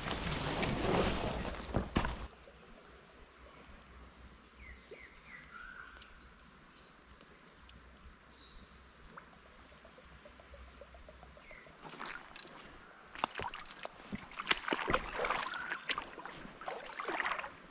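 Leaves and twigs rustling as scrub is pushed aside, then a long quiet stretch with a few faint bird chirps, then irregular splashing and sloshing of shallow creek water that goes on to the end.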